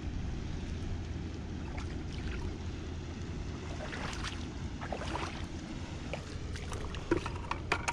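Steady wind rumble on the microphone, with scattered small splashes and trickles of footsteps wading through shallow tide-pool water on a reef flat, a few clustered about halfway through and near the end.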